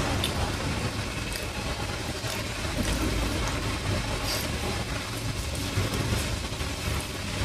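Steady low rumble of background noise, with a few faint clicks scattered through it.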